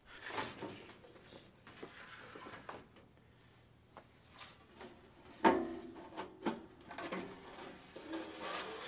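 Scattered light clicks and knocks as the sheet-metal case and cover of an old Christie 6-12 volt battery charger are handled, with a louder knock about five and a half seconds in.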